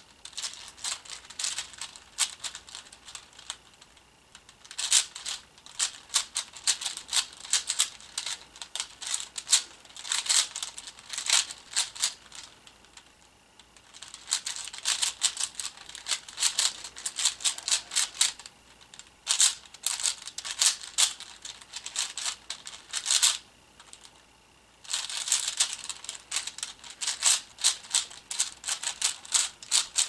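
Plastic clicking and clacking of a 4x4 Rubik's cube being turned fast during a speed solve: rapid runs of layer turns, broken by short pauses of a second or so.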